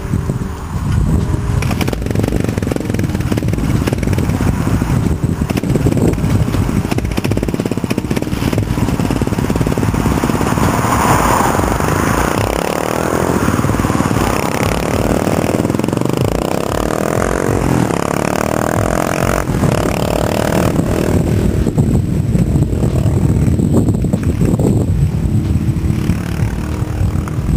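Yamaha XT 550 single-cylinder four-stroke motorcycle engine revving as it rides along the road, its pitch rising and falling through the middle. A car drives past close by, over a low rumble of wind on the microphone.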